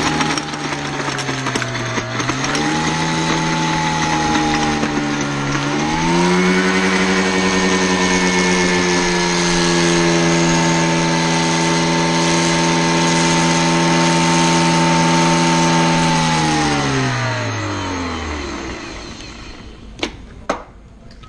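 Electric blender running at full speed, grinding cane and vanilla sugar into powdered sugar; its motor pitch dips and rises in the first few seconds, holds steady, then falls as the motor is switched off and spins down. Two sharp clicks follow near the end.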